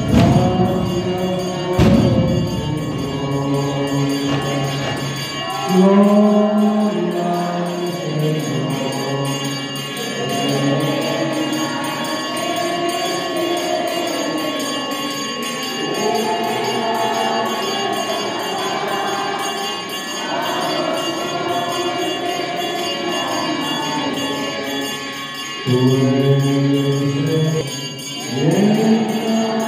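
Group singing of a church hymn, with jingling percussion keeping a steady beat. Two sharp knocks sound within the first two seconds.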